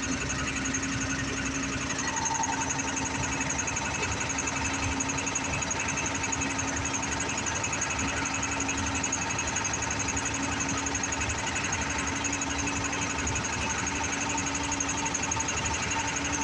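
Tata BS4 common-rail (CRDI) diesel engine running steadily with an abnormal rapid knocking rattle; a steady whine joins about two seconds in. The noise comes with white exhaust smoke and is likely a sign of a fuel-injection, coolant or internal engine fault.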